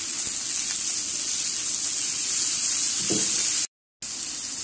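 Chopped onion and tomato sizzling in hot oil in a frying pan while being stirred with a spatula: a steady high hiss. It cuts out for a moment about three-quarters through, then resumes.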